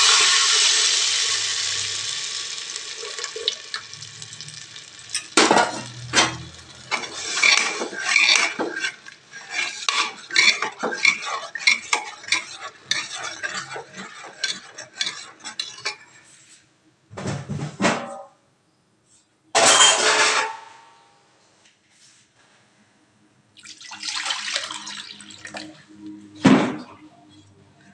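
Batter poured into hot oil in a pressure cooker hisses loudly at first, the sizzle dying away over a few seconds. Then a metal ladle clinks and scrapes against the cooker as the mixture is stirred, with a few separate bursts of noise later on.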